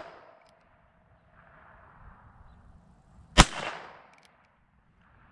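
A single .22 Magnum shot from a Heritage Rough Rider single-action revolver about three and a half seconds in, a sharp crack with a short echo trailing off.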